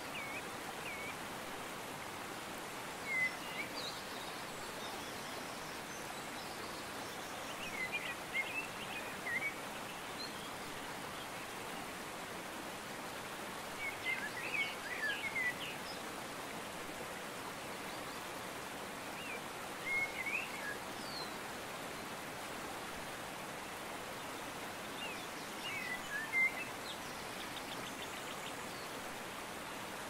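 Steady rushing water ambience, with small birds chirping in short bursts every few seconds.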